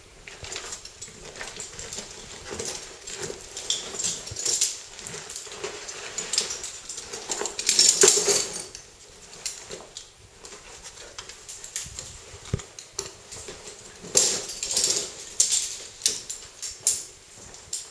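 A caver climbing down over rock: metal harness hardware clinking and scraping, with boots and suit scuffing on stone in irregular bursts, loudest about halfway through and again near the end.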